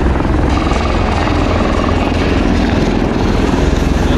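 MV-22 Osprey tiltrotor flying in helicopter mode with its nacelles upright: loud, steady proprotor noise with a rapid low beat from the blades.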